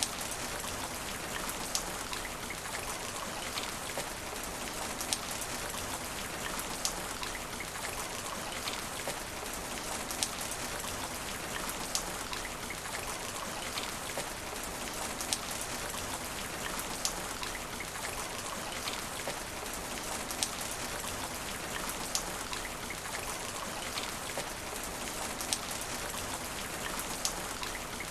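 Steady rain falling on asphalt, an even hiss of many drops. A sharp tick repeats at even intervals of about 1.7 seconds.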